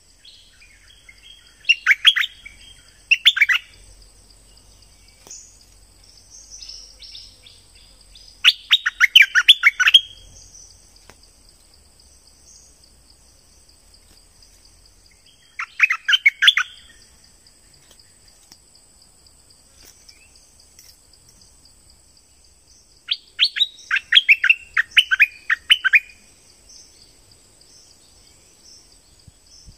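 Stripe-throated bulbul song: short bursts of quick, sharp notes every few seconds, the longest lasting about a second and a half. A steady high thin tone sits underneath.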